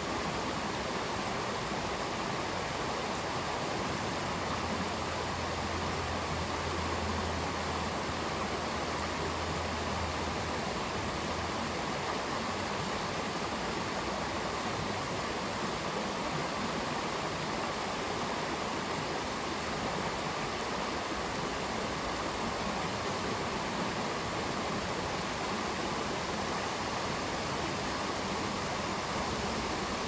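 Shallow rocky stream rushing steadily over stones and small riffles, an even flowing hiss with no breaks.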